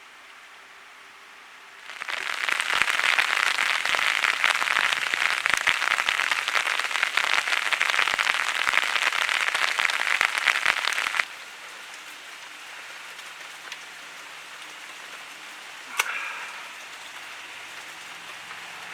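Heavy rain falling, with a dense run of close, sharp drop hits. It starts loud about two seconds in and drops off suddenly to a softer steady rain after about nine seconds. A single sharp knock comes near the end.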